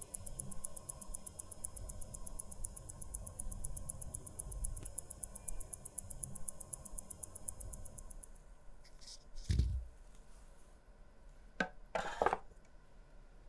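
Omega calibre 1120 automatic watch movement ticking fast and evenly. It stops about eight seconds in, followed by a few sharp clicks, a dull knock and more clicks near the end as parts are handled in a plastic parts tray.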